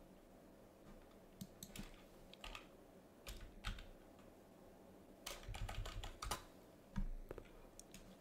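Quiet computer-keyboard typing in short bursts of keystrokes, the busiest run coming a little after halfway through.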